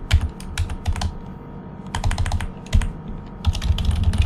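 Typing on a computer keyboard: three quick runs of key clicks with short pauses between them.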